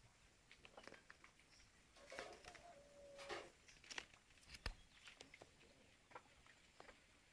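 Faint rustling of leaves and scattered light clicks as a squirrel monkey clambers through foliage close by. A short steady low tone of about a second sounds about two seconds in.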